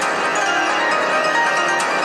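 Electronic background music, steady and continuous.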